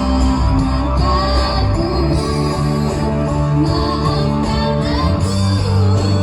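A choir singing over instrumental accompaniment with a steady bass and guitar.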